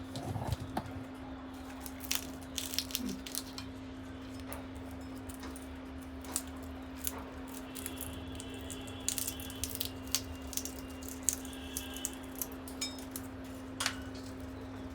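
Parrots cracking and nibbling peanut shells: irregular sharp clicks and small cracks, some in quick clusters, over a steady low hum.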